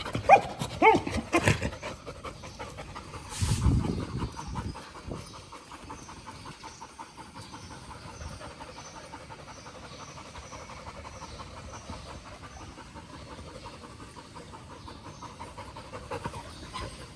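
Golden retriever panting fast and steadily. A few short pitched sounds come in the first second or so, and a brief low thump about three and a half seconds in.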